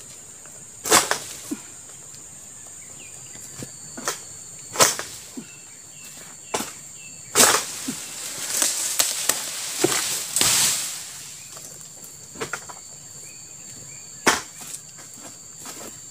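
A Palm King egrek, a sickle blade on a long pole, hacking at oil palm fronds with its unsharpened factory edge. Sharp cutting strikes come every few seconds, with a stretch of leafy rustling in the middle as fronds are worked loose. A steady high insect drone runs underneath.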